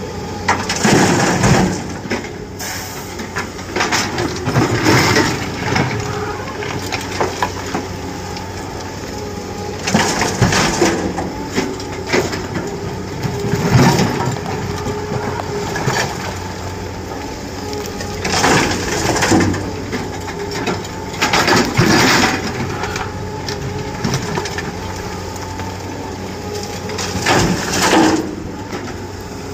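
A SANY SY225 excavator loading broken rock into a Tata Prima dump truck: loud bursts of rock crashing and clattering into the steel tipper body come every few seconds, over the steady running of diesel engines.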